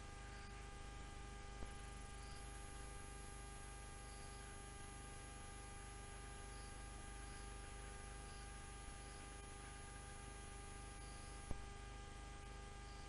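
Steady electrical hum made of several held tones over faint hiss. There is a soft click about a second and a half in and a sharper, louder click near the end.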